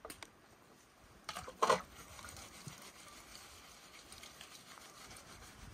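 Metal plates being washed by hand in a stone basin: a few light clinks, one louder clatter about a second and a half in, then faint rubbing as a plate is scrubbed.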